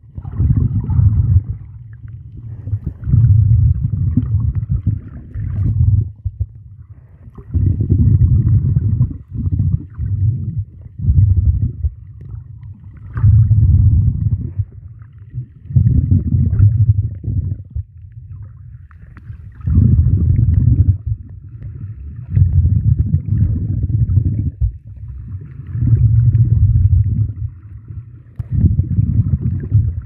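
Muffled, low underwater rumbling heard through an underwater camera, swelling in surges of a second or two every few seconds with quieter gaps between.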